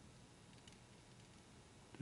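Near silence: room tone, with a faint tick a little way in.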